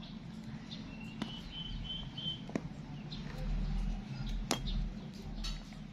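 Scattered light clicks of fingers working a wire into a plastic LED bulb housing, over a steady low hum, with a louder low rumble midway. A thin high whistling note, like a bird in the background, runs for about a second and a half early on.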